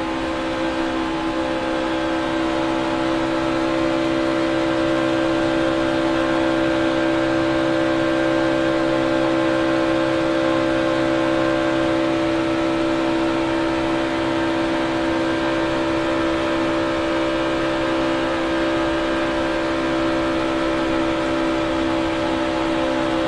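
Onboard sound of a NASCAR Xfinity Series stock car's V8 engine running at high speed in a drafting pack, a steady unbroken drone whose pitch holds constant, with wind and road noise.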